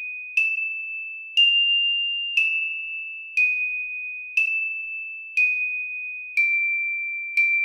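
Slow background music of single high chime-like notes, one struck about every second. Each note rings and fades before the next, and the pitch steps slightly up and down from note to note.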